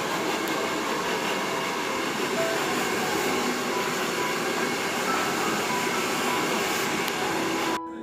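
Hair dryer blowing steadily, cutting off abruptly just before the end.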